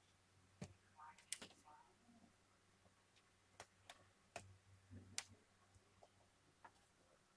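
Hands peeling the paper tear strip off an AirPods retail box and handling the cardboard box: faint scattered clicks and light taps, with short tearing rustles about a second in and a few sharper clicks near the middle.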